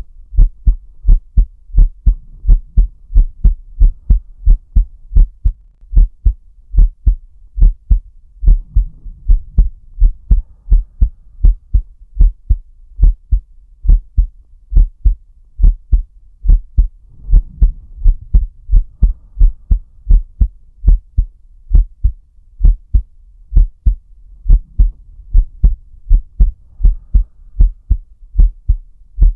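A man's heartbeat, close-miked, beating steadily in lub-dub pairs at roughly 75–85 beats a minute. Soft breaths come in about every seven to eight seconds beneath it.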